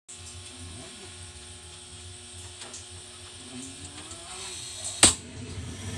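Faint mechanical clicking and rattling over a low steady hum, with one sharp, loud click about five seconds in.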